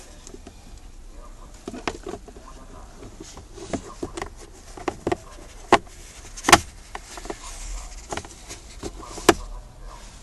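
Irregular sharp clicks and knocks of plastic parts being handled during a car cabin air filter change. The loudest come a little past halfway and again near the end.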